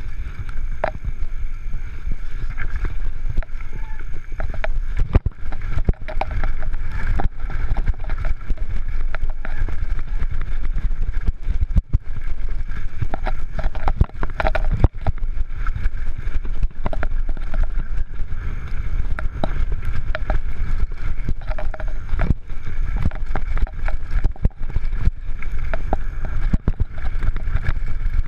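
Canyon Torque FRX downhill mountain bike running fast down a dry, stony dirt trail: a continuous rush of tyre and wind noise on the camera microphone, broken by constant rattles and sharp knocks from the bike over the rough ground.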